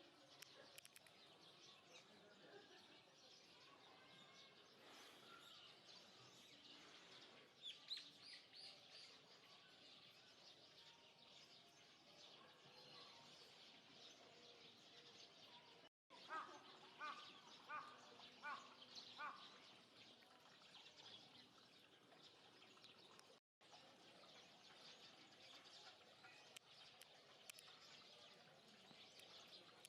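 Faint outdoor background with birds chirping now and then, including a quick run of short repeated calls about halfway through. The sound cuts out briefly twice.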